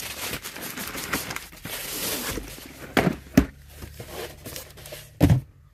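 Corrugated cardboard shipping case being opened and handled, its flaps rustling and scraping. This is followed by sharp knocks on the table, two about three seconds in and a louder one near the end.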